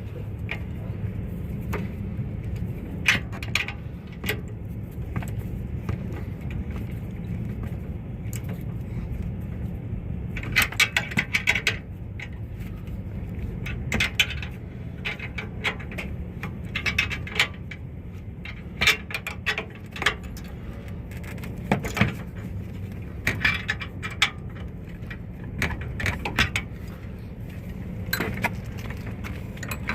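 Hand wrench tightening down hitch fittings: scattered metal clinks and short runs of quick ratcheting clicks, over a steady low hum.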